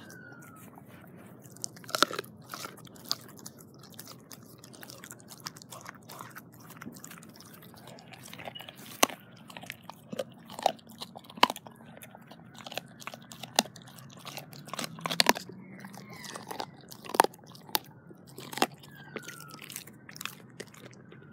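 A dog chewing a raw turkey neck, crunching through the bone in irregular bites, with several sharper, louder cracks among the softer crunches.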